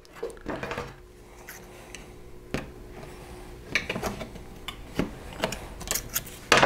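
Aluminium foil tape crinkling as it is handled and pressed down, with scissors snipping through it several times. The sharpest snip or crackle comes near the end.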